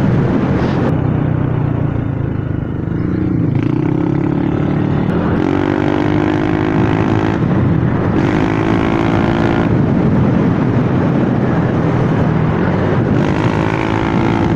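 Motorcycle engine running under way. Its pitch rises and falls several times as the throttle opens and closes.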